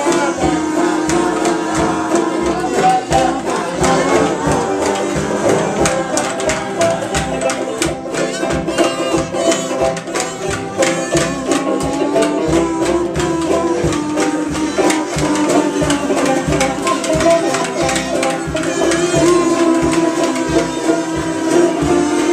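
Folk ensemble playing a lively song together: a five-string banjo and ukuleles strumming, several kazoos buzzing the tune, and a voice singing along.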